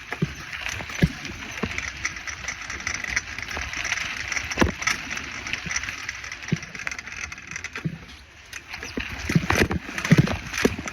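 A bicycle being ridden over a rough campground road: steady tyre and riding noise with irregular knocks and rattles as it goes over bumps.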